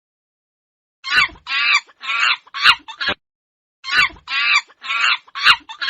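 Baboon calls: a run of short, high-pitched calls, about two a second, in two bouts with a brief pause between them.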